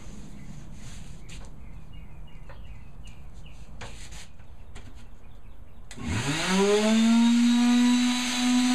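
Soft rubbing of a rag wiping shellac onto a plywood panel, then about six seconds in an electric palm sander switches on, its motor pitch rising quickly and settling into a steady running hum.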